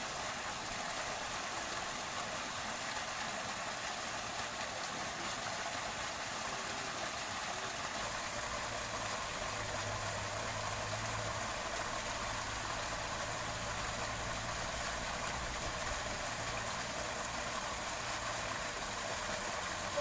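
Small waterfall pouring into a stream pool: a steady, even rush of falling water.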